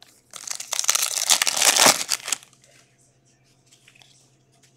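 Foil wrapper of a Topps Chrome Update baseball card pack being torn open, a dense crinkling and ripping that lasts about two seconds, followed by a few faint ticks.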